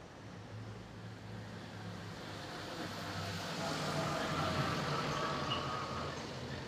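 Street traffic: a motor vehicle passes, growing louder to a peak about four seconds in and then fading away.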